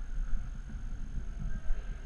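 Inline skate wheels rolling on a hard sports-hall floor: a steady low rumble broken by many small irregular knocks.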